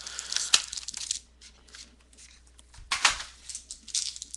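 Foil-wrapped trading-card pack crinkling and rustling in the hands as it is lifted out of its box and handled, with a sharper crackle about three seconds in.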